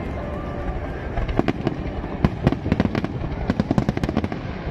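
Aerial fireworks bursting: a dense, irregular string of sharp bangs and crackles starting about a second in, over a steady low rumble.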